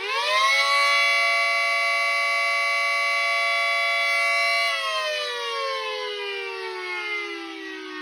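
Miniature Federal Signal 2T22A two-tone siren, rotors swapped, at full power on a short alert. It finishes winding up in the first half second, holds a steady chord of tones, then from about five seconds in winds down with the pitch falling steadily.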